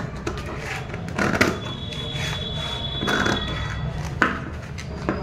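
Large metal scissors cutting through a brown paper bag: a series of short crunching snips with crinkling of stiff paper, four or five cuts spread over the few seconds. A faint high steady tone sounds for about two seconds in the middle.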